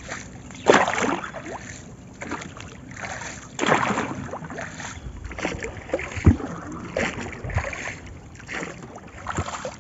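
Wooden paddle strokes in river water beside a small wooden boat: splashing swishes every few seconds, the loudest about a second in and near four seconds, with a couple of dull knocks later on.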